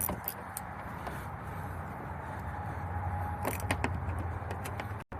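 Ratchet wrench clicking in short irregular runs as it draws in the bolt holding a car's plastic exterior door handle, over a low steady hum. The clicks come thickest about three and a half seconds in.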